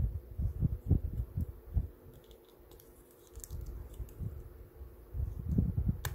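Plastic clicks and fumbling from fingers working a small plastic model kit's shield, forcing a stiff-fitting extending piece outward. Dull handling knocks come in the first two seconds and again near the end, with faint small clicks in between and one sharp plastic click at the very end.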